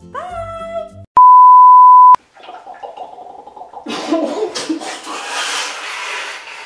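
A loud, steady one-second beep at a single pitch about a second in: a censor bleep over speech. It is followed by a woman's noisy laughter.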